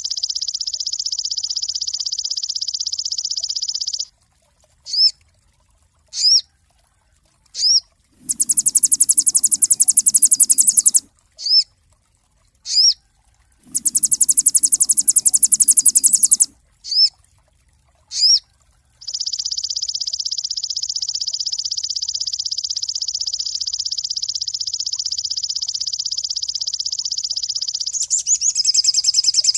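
Song of a sogon (crimson sunbird): a long, high, very rapid trill, then single sharp rising chips a second or so apart broken by two harsher buzzy rattles of about three seconds each, then another long high trill that speeds into quick sweeping notes near the end.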